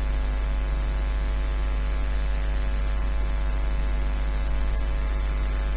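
Steady low electrical mains hum with faint static hiss underneath, unchanging throughout.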